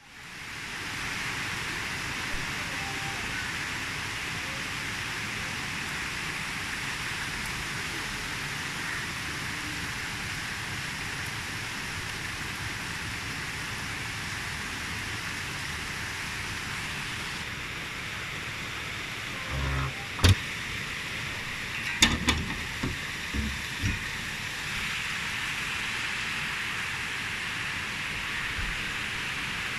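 Heavy rain falling, a steady hiss, with a few sharp knocks and thumps about two-thirds of the way through.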